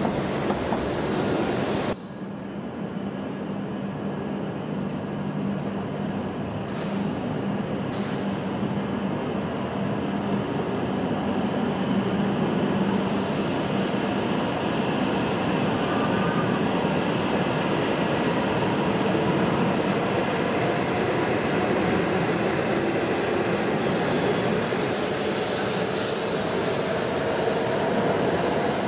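Stadler KISS double-deck electric train at a platform: a steady rumble and hum, with two short hisses about seven and eight seconds in and a longer hiss a little later. In the last few seconds a rising whine comes in as the train begins to pull away.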